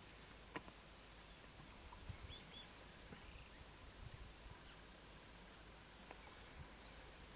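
Quiet open-bush ambience, close to silence: a faint steady hiss with a few short, scattered bird chirps, one sharp click about half a second in, and a few soft low thumps.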